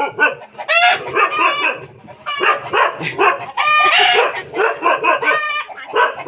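A dog barking and yelping over and over in quick, high-pitched runs.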